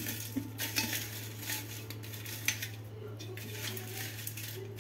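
Thin dry grass sticks clicking and tapping against the inside of a stainless steel pot as they are laid crosswise into a lattice at its bottom, with scattered light taps throughout over a steady low hum.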